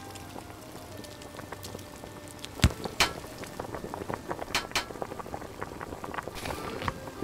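Food sizzling in a pan on the stove, a steady crackle, broken by sharp knocks and clatter as a spice rack comes loose from the wall: two loud hits a little under three seconds in, then more clacks shortly after.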